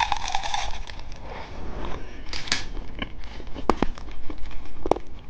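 Plastic candy packaging being handled: crinkling with a few sharp clicks, the loudest a little under four seconds in and near the end.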